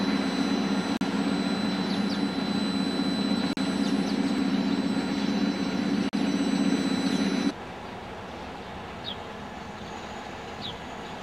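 2M62U diesel locomotive passing close by, its two-stroke diesel engine giving a loud steady drone with a faint high whine on top. About two-thirds of the way in the sound drops suddenly to a quieter, more distant rumble of the train rolling past, with two short high squeaks near the end.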